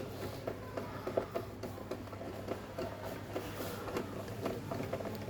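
Screwdriver driving the lower mounting screw of a smart lock's interior unit: a run of small irregular clicks and scrapes of metal on metal, over a steady low hum.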